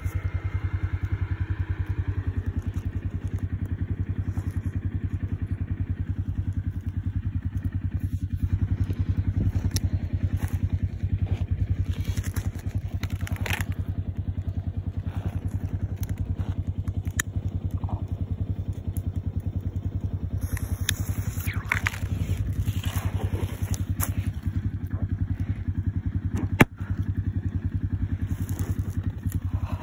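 A steady low rumble with a fast, even pulse, like an engine running. A single sharp knock comes near the end.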